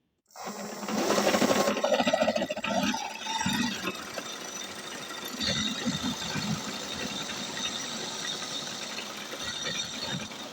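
Car alternator converted into a 72-volt electric bike motor running under power, with its field coil energised. It starts just after the start, is loudest for the first couple of seconds, then runs on as a steady whirring with occasional low knocks.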